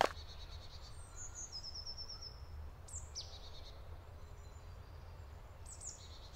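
Wild songbirds chirping faintly in woodland: a short trill of repeated notes, then a few quick downward-sliding calls, over a steady low rumble. A single sharp knock right at the start is the loudest sound.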